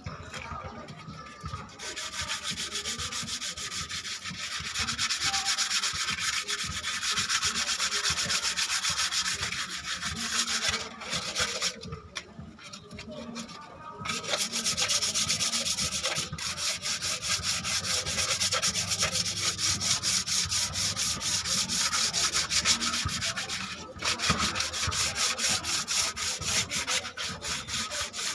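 Hand sanding an engine part with rapid, steady back-and-forth strokes. The strokes stop for a few seconds around the middle and briefly again later.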